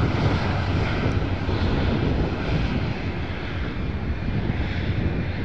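Alenia C-27J Spartan's two Rolls-Royce AE 2100 turboprop engines and propellers climbing out just after take-off, gear still down. It is a steady, heavy rumble that holds level throughout.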